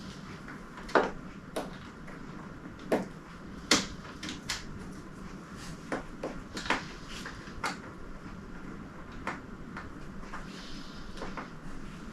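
Irregular clicks and light knocks of hard parts being handled and fitted while a new 3D printer is unpacked and its shipping screws are worked on with a hex tool.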